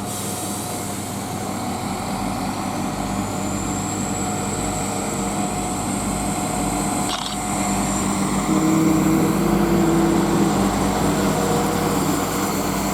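Class 172 Turbostar diesel multiple unit departing, its underfloor diesel engines running under power with a steady high whine. The sound grows louder about eight seconds in.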